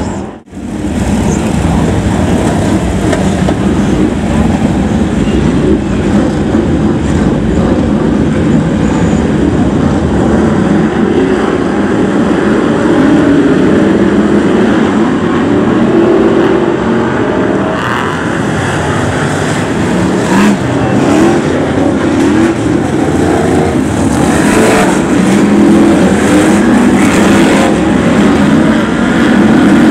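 A pack of BriSCA F1 stock cars' V8 engines running at race speed, loud and continuous, with engine notes rising and falling as cars pass and accelerate out of the bends. The sound drops out briefly just after the start.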